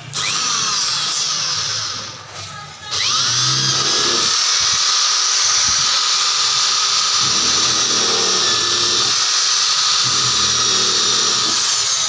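Corded Gold Dragon impact drill drilling into a sheet-metal panel. It spins up with a rising whine, eases off briefly about two seconds in, then spins up again and runs steadily at high speed.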